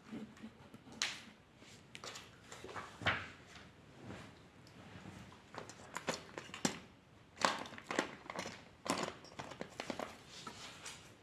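Drawing strokes on paper: a dozen or so irregular short scratches, some sharper and louder than others.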